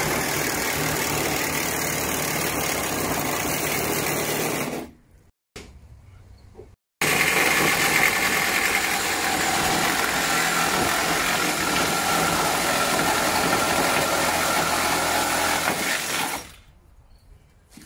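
Cordless power tool cutting through a sheet-metal car body panel: a loud, steady grinding cut with a faint whine. It stops about five seconds in and starts again about two seconds later, running until shortly before the end.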